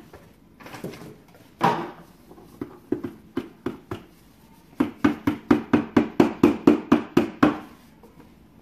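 A cardboard box of baking soda tipped over a plastic bucket, with a few scattered knocks and then a quick run of even taps, about four or five a second for nearly three seconds, as the box is shaken out to empty the powder.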